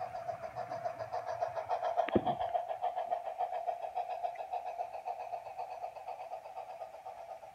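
HO scale model freight train rolling past close by: a steady motor hum with a fast, even clicking of wheels on the track, and a single knock about two seconds in.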